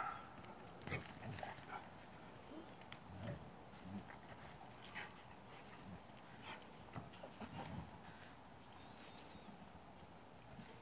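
Great Pyrenees dogs: one bark right at the start, then faint scattered soft thumps and scuffles of paws and bodies as the dogs move about.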